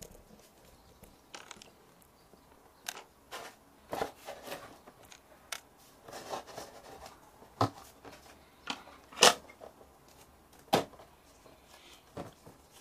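Hard plastic parts of a Play-Doh toy oven being handled and opened: scattered clicks, taps and light knocks, with the loudest clack about nine seconds in and another a second and a half later.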